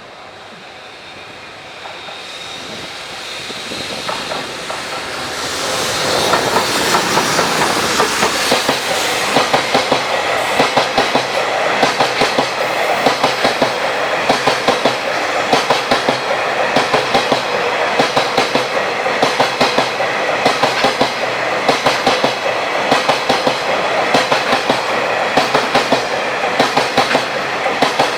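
A train approaching and passing close by. The running noise builds over the first few seconds, then the wheels clack over rail joints in a steady repeating pattern of grouped beats.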